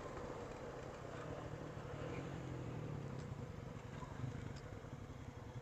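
Honda ATV engine running faintly and steadily, with a few small clicks.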